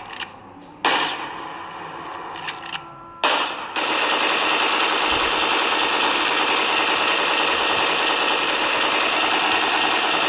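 Loud, distorted noise from an emergency alert alarm recording: a sudden blast about a second in that fades away, another just after three seconds, then a continuous harsh hiss from about four seconds in to the end.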